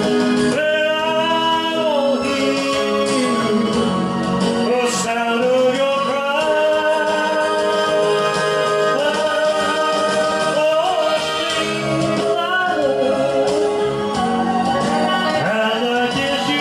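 Slow ballad music with long held sung notes over the accompaniment.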